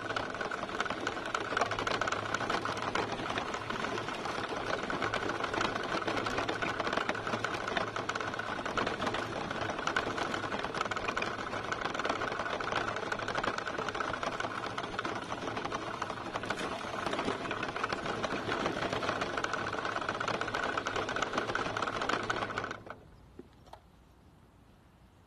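Electric motor and gearbox of a scale RC truck whirring steadily as it drives over gravel, heard from a camera mounted on the truck. The drive stops abruptly near the end, leaving only a faint background.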